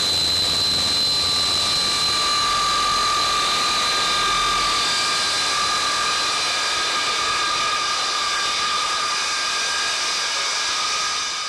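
Pratt & Whitney J57 turbojet engines of a KC-135A Stratotanker running on the ground during a maintenance engine run: a steady jet roar with a high whine held at a constant pitch.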